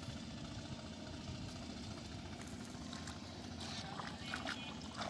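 Bare feet splashing in shallow river water as a person wades in, starting about halfway through, over a steady low rumble.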